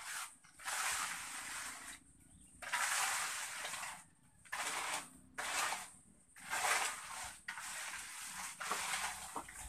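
Steel trowel scraping across a fresh, wet concrete floor in a series of strokes, each about a second long, with short pauses between.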